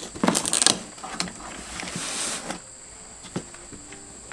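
A knife slitting the packing tape on a cardboard shipping box, with the cardboard flaps scraping and rustling. There are sharp scrapes in the first second and a longer hissing scrape around two seconds in.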